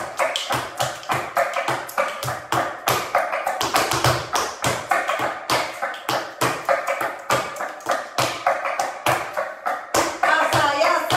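Flamenco footwork: shoes striking a wooden floor in a quick, uneven rhythm of about four taps a second, over flamenco music, with a singing voice coming in near the end.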